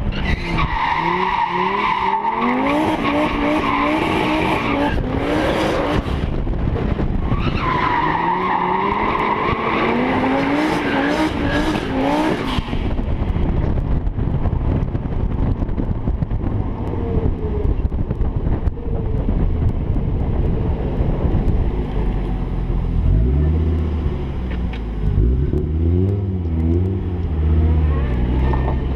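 A Volvo 242's turbocharged five-cylinder engine accelerating hard through the gears twice in the first half, its pitch climbing and dropping at each shift, with heavy wind rush. After that it runs at lower revs as the car rolls slowly, with an uneven low rumble near the end.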